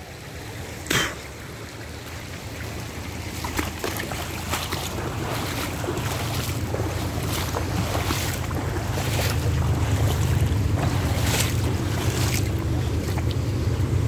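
Wind buffeting the microphone over the rush of a shallow, rocky creek, the wind rumble growing stronger from about four seconds in. Scattered short crunches of footsteps on creek-bank stones.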